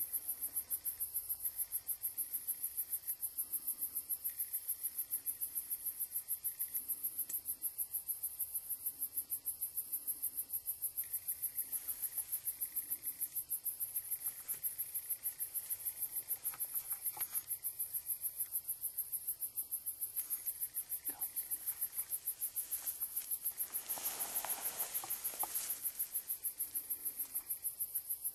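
Crickets chirping in a steady, high-pitched, even rhythm of about four to five chirps a second. Late on, a brief soft rustling hiss rises under them.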